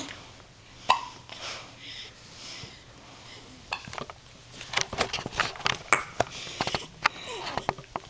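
A newborn baby hiccuping, with sharp hiccups at the start and about a second in and soft breathing between them, then a quick run of small clicking sounds in the second half.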